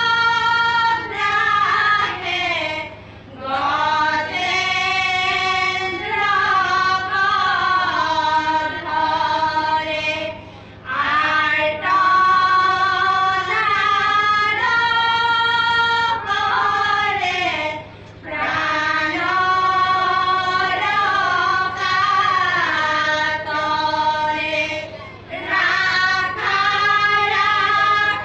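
A group of singers chanting a dihanaam, the Assamese devotional song of the Sankari tradition, unaccompanied. It is sung in long drawn-out phrases of held, bending notes, with a short break about every seven seconds.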